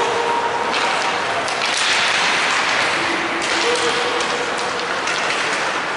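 Ice hockey rink sound during live play: skates scraping on the ice and sticks and puck clacking in short, irregular clicks over a steady wash of arena crowd noise.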